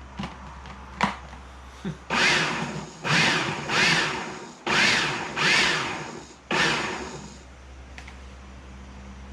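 Food processor pulsed in a series of short motor bursts, about a second each, chopping salsa ingredients. A few sharp clicks come before the first burst.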